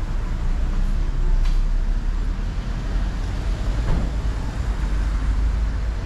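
City street traffic: a steady, deep rumble of vehicles on the road.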